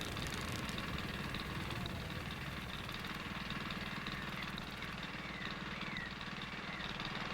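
Engine running steadily at idle with an even, rapid pulse, and a few faint high chirps about two-thirds of the way through.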